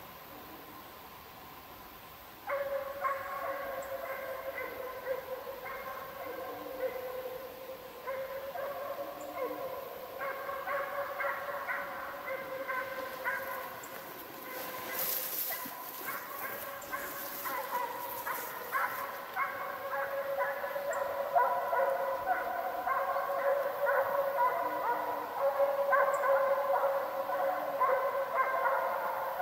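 Russian hounds baying almost without a break while running a hare. The baying starts a couple of seconds in and grows louder toward the end as the hounds come nearer.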